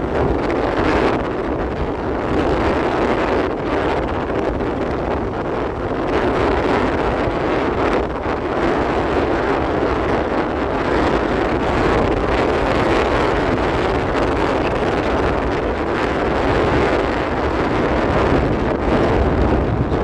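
Strong wind buffeting the microphone, a loud, steady rushing rumble with no let-up.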